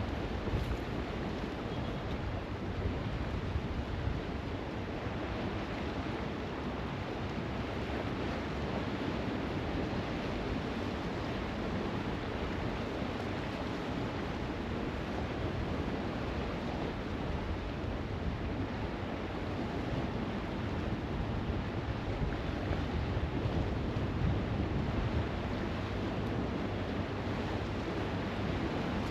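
Steady wind buffeting the microphone over waves washing on the shore.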